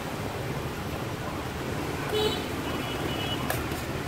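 Steady street traffic noise with a short vehicle horn beep about two seconds in, followed by a fainter high beep, and a single light click near the end.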